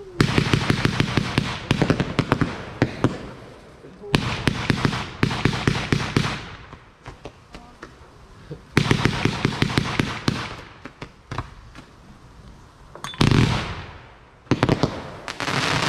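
Fireworks crackling: waves of rapid, dense pops, about five of them, each lasting a couple of seconds, with short lulls between.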